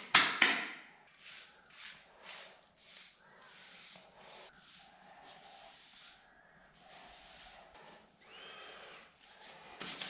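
Wet mortar being scraped and smeared by hand across the edge of a fresh concrete slab: a loud rasping rush at the start, then a run of short scraping strokes about every half second, with a brief squeak near the end.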